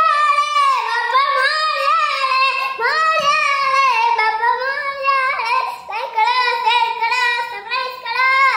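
A young boy singing in a high, loud voice, phrase after phrase, with the pitch rising and falling.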